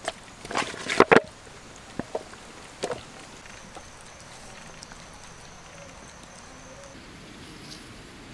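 A few sharp knocks and clatters in the first three seconds, loudest around one second in. After that a steady faint outdoor background, with a thin high tone for a few seconds in the middle.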